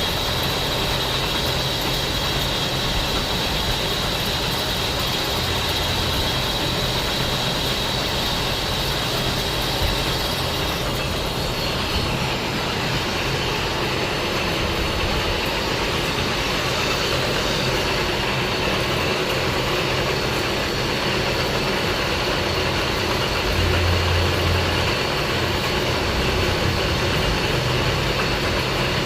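Lathe running steadily: a low motor hum under a high whine, and the whine changes about eleven seconds in.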